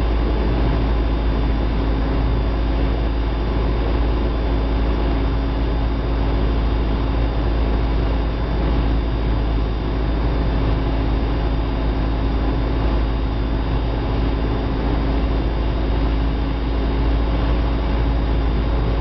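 Cessna 172's engine and propeller running steadily, heard inside the cockpit on final approach: an even drone with a constant low hum and no change in power.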